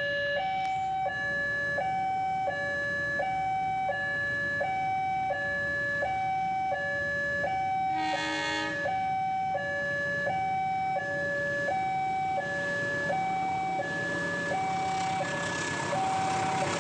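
Railway level-crossing warning alarm sounding a steady electronic two-tone signal that alternates high and low over and over, warning of an approaching train. About eight seconds in a short horn blast cuts across it.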